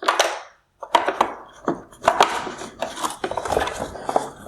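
Irregular plastic clicks, knocks and scraping from wire harness connectors being pushed through holes into a plastic LED headlight housing.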